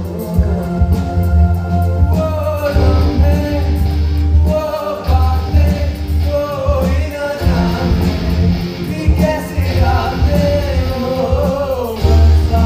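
Live band music through stage speakers: singing over electric guitars, a heavy bass line and drums.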